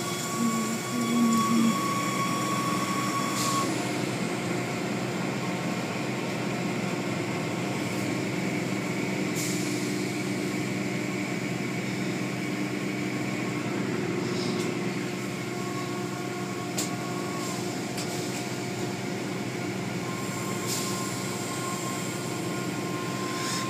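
Automatic car wash machinery running, heard from inside a car: a steady whirring hum of motors and swinging cloth strips with spattering spray. A thin steady whine sounds for the first few seconds and again near the end.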